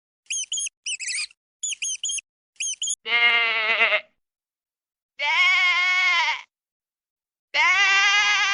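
Quick groups of short, high-pitched squeaks for about three seconds, followed by a sheep bleating three times, each bleat about a second long with a wavering pitch.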